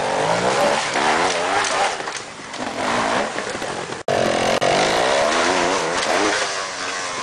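Trials motorcycle engines revving up and down in quick, repeated swings of pitch as the bikes are worked up a steep climb. The sound cuts out for a moment about four seconds in.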